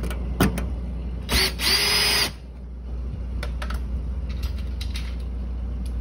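Cordless drill/driver spinning briefly to drive a screw into the refrigerator's rear cover panel: a short burst, then a steady whir of about a second. Scattered clicks of handling around it over a steady low hum.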